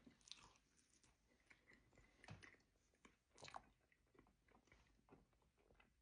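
Faint biting and chewing of a fruit-filled pie with a crisp crust: scattered soft crunches and mouth clicks, the clearest about two and three and a half seconds in.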